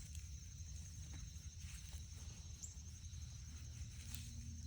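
Quiet outdoor ambience: a steady, high-pitched drone of insects over a low rumble, with a couple of faint clicks.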